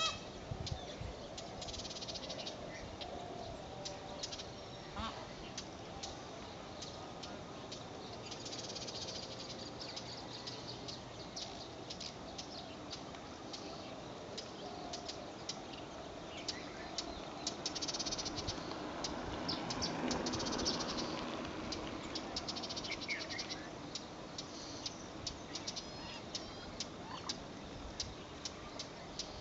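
Outdoor ambience with scattered bird calls and many short sharp clicks, and a broader swell of noise about twenty seconds in.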